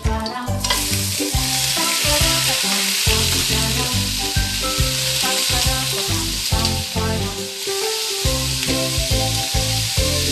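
Pork spareribs sizzling loudly in hot oil in a wok, the sizzle starting suddenly less than a second in as the meat goes into the pan, then stirred with a wooden spatula. Background music with a steady beat plays underneath.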